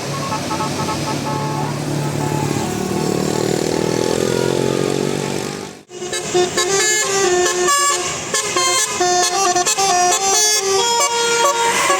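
Indonesian bus 'telolet' multi-tone horns playing quick tunes of stepped notes over a bus engine, whose note rises in the middle of the first half. The sound cuts out abruptly about halfway through, then a horn plays a fast run of switching notes.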